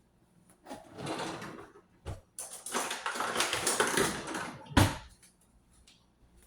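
Handling noise: two spells of rustling or scraping, a small click between them, then one sharp knock about five seconds in.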